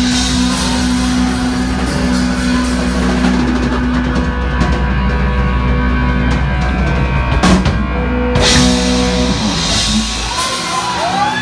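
Live rock band with Les Paul-style electric guitars, bass and drums holding a long sustained chord, with a couple of sharp drum hits. About ten seconds in the bass drops out and a guitar plays bending, wavering lead notes.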